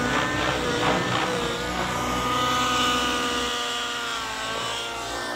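Two radio-controlled helicopters, an Align T-Rex 700 Nitro and a Gaui NX7, flying aerobatics: engine and rotor whine that keeps shifting in pitch and dips near the end.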